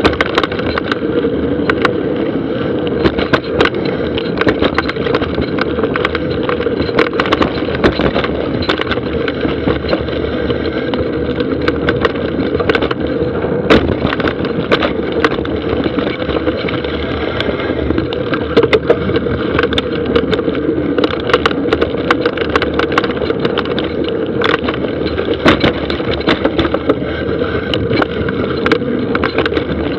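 Mountain bike descending a dry dirt trail at speed: a steady rumble of tyres on hardpack and gravel, with frequent sharp clatters and knocks as the bike rattles over rocks and roots.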